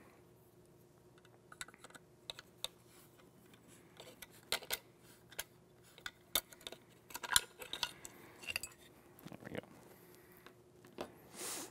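Irregular light metal clicks and taps: a long Allen wrench turning out the grip screw of a VR80 shotgun's lower receiver, with small parts handled and set down on the bench mat.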